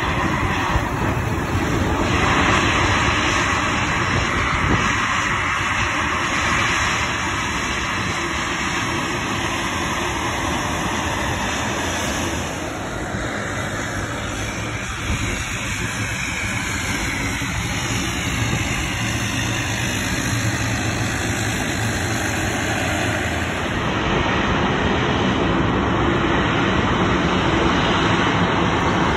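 Jet airliner engines running, a steady rushing noise, as aircraft taxi and take off. It dips a little midway and grows slightly louder again about three-quarters of the way through.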